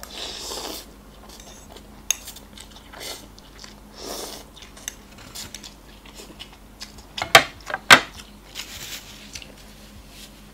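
Slurping of laksa noodles (rice vermicelli) and chewing, with a metal fork clinking against a plate and bowl. The loudest sounds are two sharp clinks about half a second apart, roughly three-quarters of the way through.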